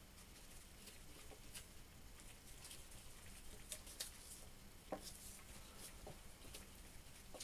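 Near silence with faint scattered clicks and taps: gloved hands handling the metal parts of a shaft-truing stand, with a few slightly sharper ticks about four and five seconds in.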